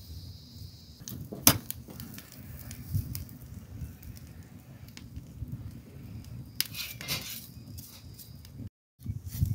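Open wood fire burning under a sheep's head and trotters being singed, with a low rumble of flames and scattered crackles, and one sharp snap about a second and a half in. A brief hiss comes about seven seconds in.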